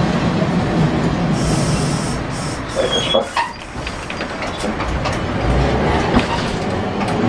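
Nagasaki Electric Tramway streetcar running along street track, heard from inside the cab: a steady rumble of wheels and motors with a series of clicks, and a short high-pitched squeal about three seconds in.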